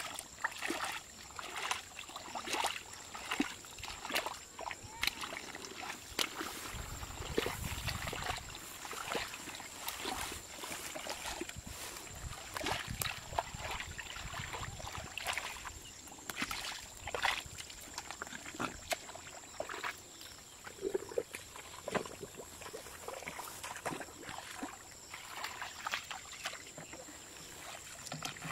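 Hands splashing and groping in shallow muddy water, making irregular slaps, sloshes and squelches as mud and water are scooped. A faint steady high whine runs underneath.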